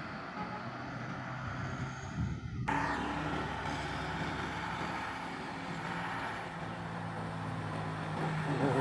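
Heavy truck engine running at low revs, a steady drone that grows louder near the end.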